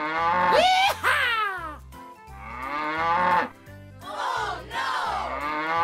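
Cattle mooing, several long calls one after another that rise and fall in pitch, over background music with a steady repeating beat.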